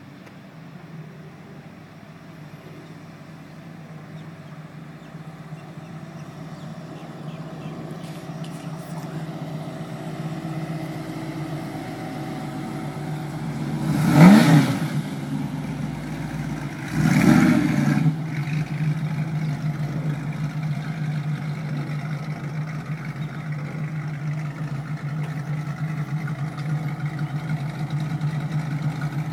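1970 Dodge Challenger's engine running at low speed and growing louder as it approaches, revved briefly twice about three seconds apart midway through, the first rev rising in pitch. It then settles back to a steady low running that slowly gets louder toward the end.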